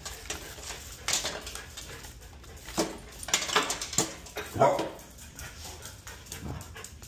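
Dog whimpering while leashes are gathered up, mixed with sharp clinks and rattles of the leash clips and a plastic retractable leash being handled.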